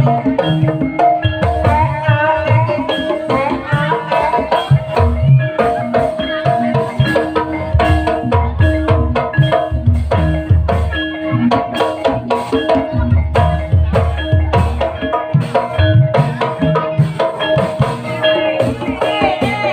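Javanese gamelan music accompanying an ebeg hobby-horse dance: mallet-struck keyed instruments play a repeating melody over steady drum beats.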